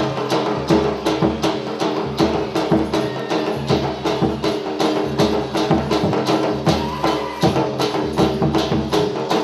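Gujarati folk dance music with a fast, steady drum beat and sharp clicks on every beat, over sustained instrumental melody.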